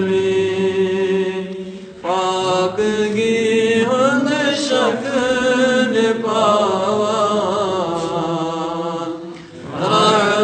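A man's unaccompanied voice chanting devotional verse in long, wavering held notes, with two short breaks for breath, about two seconds in and near the end.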